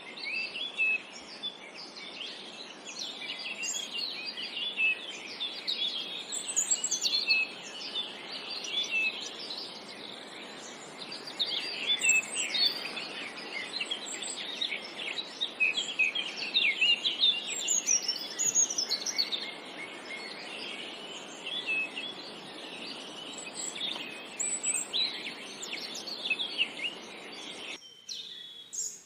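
A dense chorus of many small songbirds chirping and singing over each other in quick, high chirps and trills, over a steady background hiss. The hiss drops out abruptly near the end while the chirping goes on.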